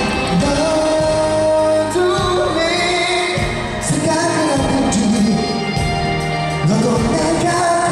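Male pop singer singing live into a microphone over loud backing music, heard through a concert sound system from the audience.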